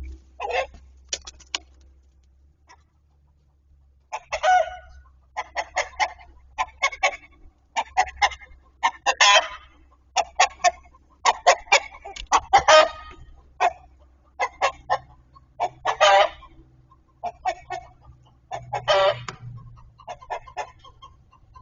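Chickens clucking in quick strings of short calls after a quiet first few seconds, with four longer drawn-out calls spread through.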